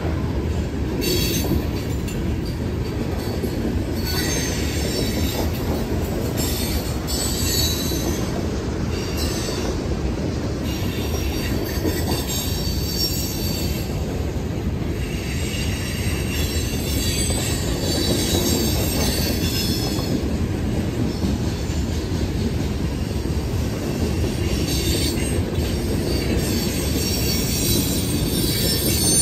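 Coal train hopper cars rolling past on the rails: a steady heavy rumble of wheels and cars. High-pitched wheel squeal comes and goes on top of it.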